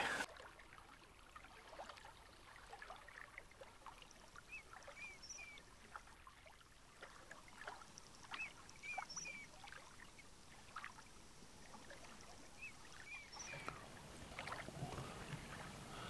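Faint, high whistled calls of a common teal drake, coming in three short runs of about three notes each, over a quiet background.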